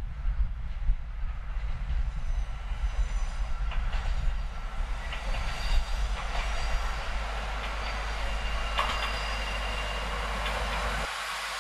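KiHa 150 diesel railcar pulling into a station, its running noise growing louder as it approaches, with a thin high squeal of wheels or brakes from about halfway as it slows.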